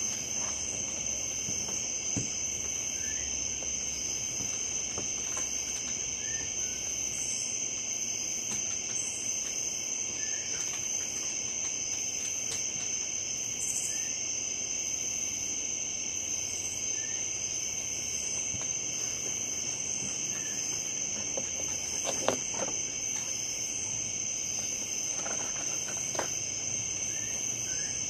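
Steady chorus of crickets: two continuous high trills at different pitches, with faint short chirps now and then. A single sharp click sounds about twenty-two seconds in.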